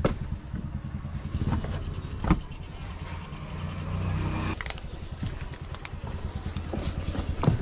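Bus engine idling with a steady low hum, with a few sharp knocks over it.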